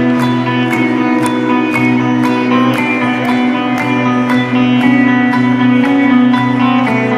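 Background music: a guitar track with a steady beat about twice a second over sustained tones.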